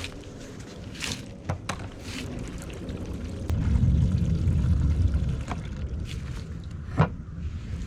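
Gasoline being poured into the fuel tank of a small Craftsman 6.5 horsepower engine, the pour louder in the middle, with a few sharp clicks and knocks, the loudest about seven seconds in.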